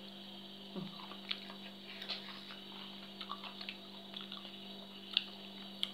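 Wet chewing and lip-smacking of someone eating papaya salad by hand, a scatter of small moist clicks with two sharper smacks near the end, over a steady low hum.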